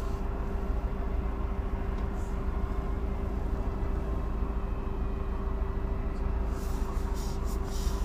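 Car engine running steadily: a low rumble with a constant hum.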